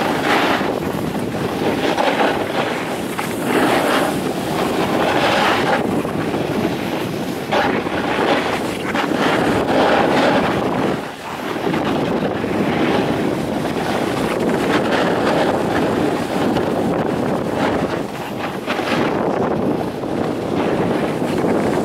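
Wind buffeting the microphone during a downhill ride, mixed with the hiss of a snowboard sliding over packed snow, surging and easing every couple of seconds.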